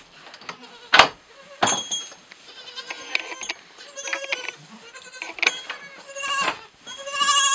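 Newborn goat kids bleating: a series of high, quavering calls through the second half. Two sharp knocks come early, the first about a second in and the loudest sound of all.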